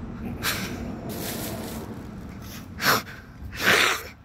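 A woman sniffing and breathing hard in about four short, noisy breaths, the loudest near the end, as the chilli heat of very spicy noodles gets up her nose.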